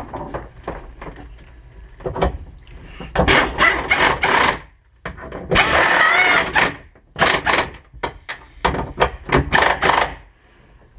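Power driver, most likely a cordless impact turned down low, running mounting bolts into aluminium engine-mount plates. It goes in short bursts of about a second each, with a wavering whine in the loudest burst near the middle and quicker short strokes near the end.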